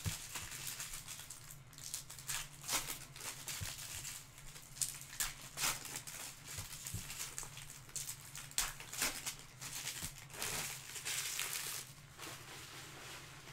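Topps Chrome trading cards being handled in a stack, slid and flicked one past another: a quick run of short swishes and flicks, with a longer rustle a little before the end.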